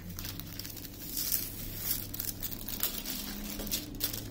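Clear plastic sheeting crinkling and rustling in irregular crackles as a plastic-covered craft canvas is pressed flat and handled, over a faint steady low hum.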